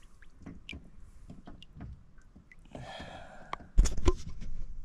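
Water sloshing and dripping with small splashes against a boat's hull as a large fish is held in the water for release, then two sudden loud thumps about four seconds in.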